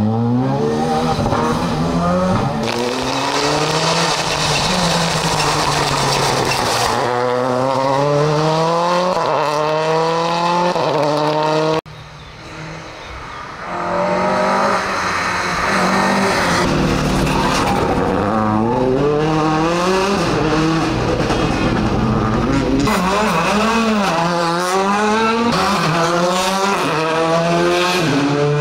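Rally cars at full throttle on a special stage, engines climbing in pitch again and again and dropping back at each gear change. There is a sudden break about twelve seconds in, after which a car is heard approaching from quieter to loud and running hard through the gears again.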